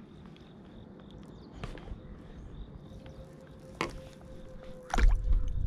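Handling noises from a freshly caught black sea bream and the fishing gear: a few soft knocks and rustles, then a louder low rumble near the end.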